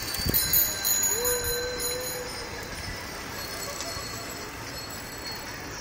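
Bicycle bells ringing among a crowd of cyclists over wind and road noise, the ringing fading out after the first couple of seconds. A short held note sounds about a second in.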